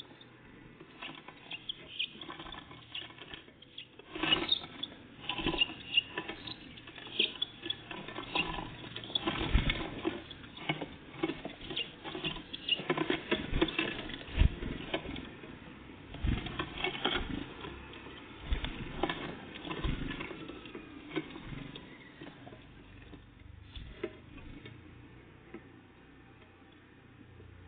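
Small birds, great tits and blue tits, feeding at close range: irregular pecking taps, knocks and scrabbling. The noises are busiest for the first twenty seconds or so and then thin out to a few odd taps.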